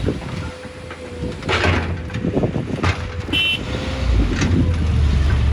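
Heavy diesel construction machine running with a steady low engine drone, broken by knocks and short hissing bursts, and a brief high beep about three and a half seconds in.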